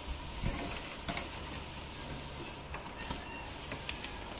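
Steady hiss of background noise with a few faint light knocks in the first second, as metal partition panels and posts are handled and fitted together.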